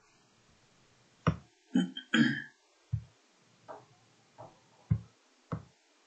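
Irregular short knocks and clicks, about nine of them spread over the last five seconds, each one brief and separate, starting about a second in.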